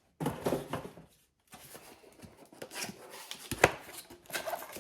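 Rustling and clicking of a new plastic turn-signal housing and its packaging being handled, with one sharp click about three and a half seconds in.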